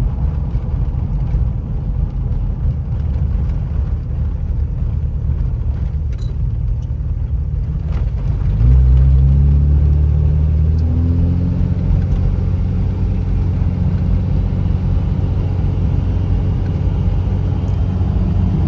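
5.9 Cummins inline-six turbo diesel in a third-gen pickup running under way, a steady low drone. About eight and a half seconds in it suddenly gets louder and its pitch climbs for a couple of seconds before levelling off, as the truck accelerates.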